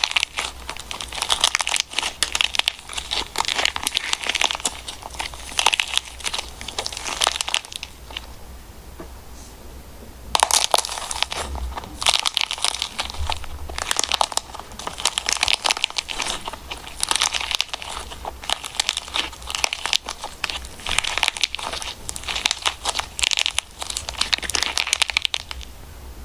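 Slime being squeezed and played with by hand: a dense run of small crackles and pops. It pauses for about two seconds around a third of the way in, then resumes.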